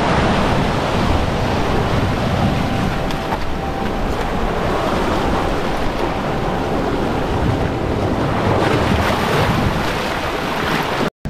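Ocean surf washing and breaking over a rocky shore ledge, a steady rushing noise, with wind buffeting the microphone. The sound cuts out for a moment near the end.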